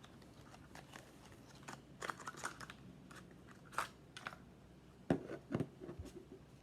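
Scattered small clicks and crinkling from handling LEGO pieces and their plastic packaging, at irregular times, clustered about two seconds in, near four seconds and again past five seconds.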